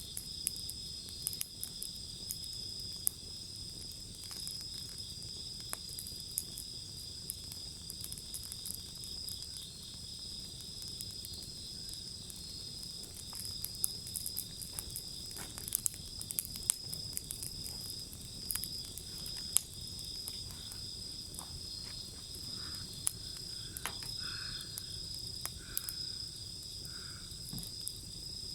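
Wood fire crackling with irregular sharp pops, over a steady high-pitched trill of insects such as crickets. Near the end there are a few short, lower repeated calls, about one a second.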